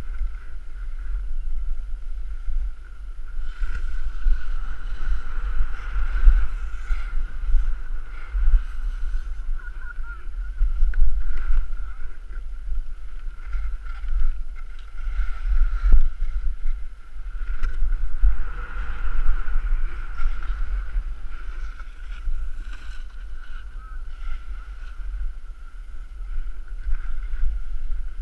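Wind buffeting the microphone of a camera carried by a skier moving down a piste, with a steady thin whistle and the hiss of skis on snow that swells and fades with the turns.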